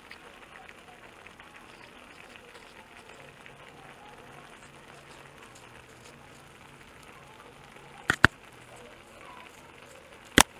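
Fish stew simmering in a frying pan on a gas stove with a faint, steady sizzle. It is broken by three sharp clicks or knocks: two in quick succession about eight seconds in, and one more near the end.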